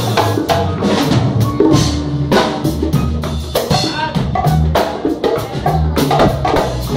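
A live band playing: drum kit and a djembe beating a busy rhythm over double bass and piano.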